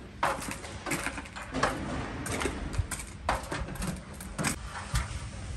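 Irregular clicks, knocks and clatter of work around a boat's hull, with a man climbing an aluminium stepladder while carrying a case.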